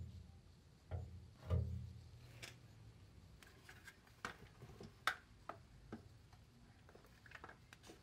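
Faint scattered clicks and light knocks of hands handling a tube of seam sealer and its cap under the car's underbody, with a couple of duller thuds in the first two seconds.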